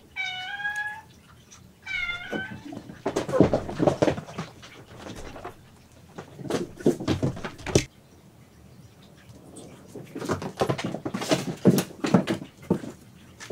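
A cat meowing behind a closed door: two clear, drawn-out meows in the first three seconds, then a run of shorter, rougher cries.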